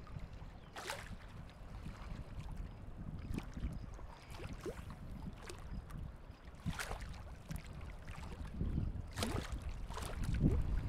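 Wind rumbling on the microphone, with a few brief scattered clicks and rustles, a little louder near the end.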